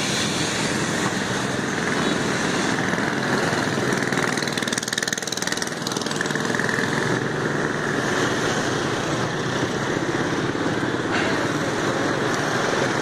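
Street traffic made up mostly of motorbikes: small engines running steadily, with road noise.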